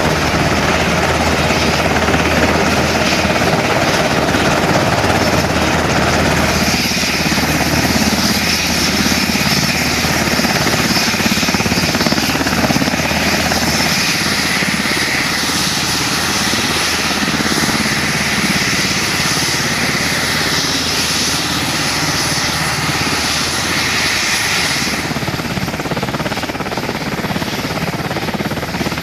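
UH-60 Black Hawk helicopters running on the ground with rotors turning: the steady whine of their twin turboshaft engines over the chop and rumble of the rotors. The balance of whine and rumble shifts a few times.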